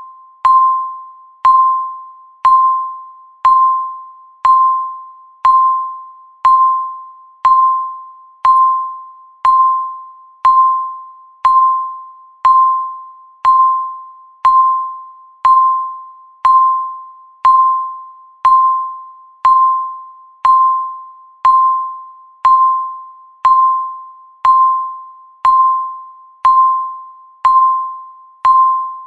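Countdown timer's tick sound: a short pitched ping once every second, each starting sharply and dying away before the next.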